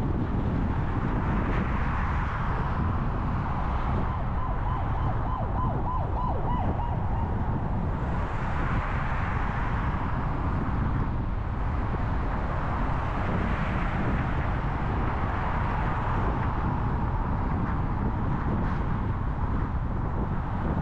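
Car driving through city traffic: steady low road and engine rumble, with a hiss that swells and fades every few seconds. A short run of faint, evenly spaced beeps comes about five seconds in.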